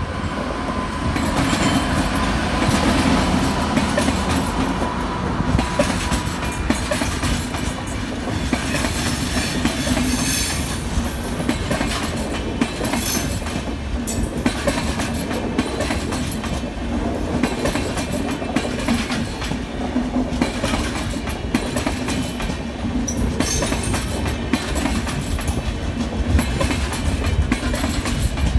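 Express passenger train passing at speed behind an electric locomotive: the steady rushing rumble of the coaches with a rapid clickety-clack of wheels over the rail joints. A thin steady high tone sounds for the first six seconds or so as the locomotive goes by.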